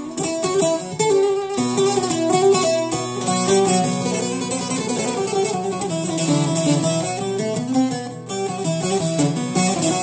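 Long-necked bağlama (saz) played solo: a melody of quick plucked notes over a steady drone from the open strings.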